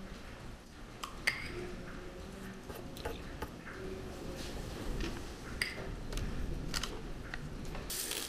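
A pastry brush dipped in a small glass of beaten egg and brushed onto dough, giving scattered sharp clinks of the brush against the glass, with a brief rattling rustle near the end as a container of sprinkles is picked up.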